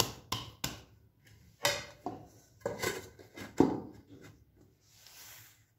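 A series of short knocks and taps as hands pat a ball of dough in a stainless steel bowl and a plate is set down over the bowl as a lid.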